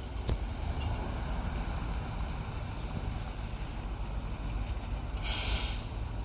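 Fire truck engines idling in a steady low rumble. A short burst of hiss comes a little after five seconds in.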